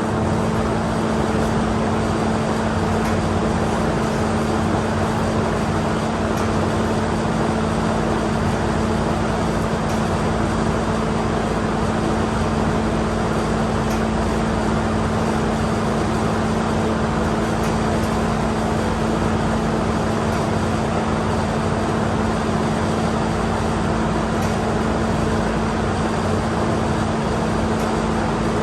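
A machine running steadily with a constant hum and a rushing noise, starting right at the beginning and holding an even level throughout.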